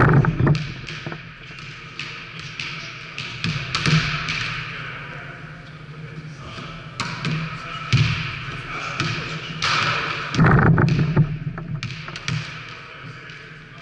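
A volleyball being hit by hand and bouncing on a wooden sports-hall floor: a string of sharp thuds with a ring of echo after each. The loudest come at the start and in a cluster about ten seconds in. Indistinct voices carry under them.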